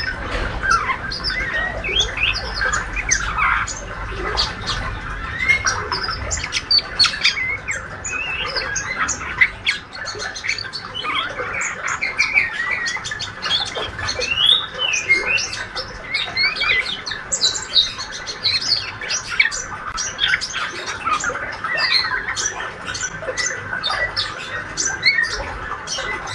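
Young male white-rumped shama singing a rapid, continuous twittering subsong of short chirps, squeaks and clicks. This is the practice chatter of a young bird learning its song, which bird keepers call ngriwik.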